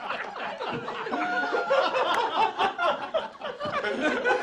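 A group of men and women laughing together at a joke's punchline, many chuckles and laughs overlapping.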